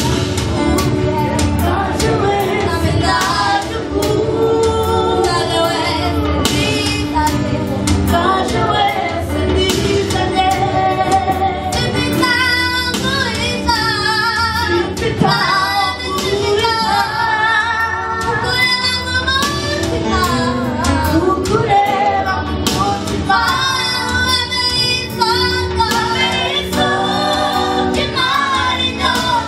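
Youth gospel choir singing, led by girls' voices through microphones with the choir behind them.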